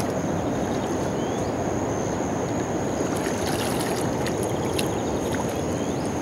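River current running steadily over a shallow gravel bed, with a few light clicks about three to five seconds in.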